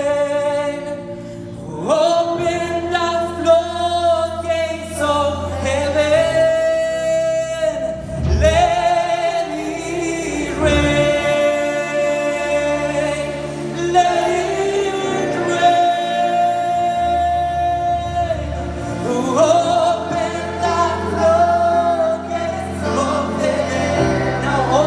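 Live worship song: singers, with a man leading on a microphone, hold long sung notes over a steady accompaniment.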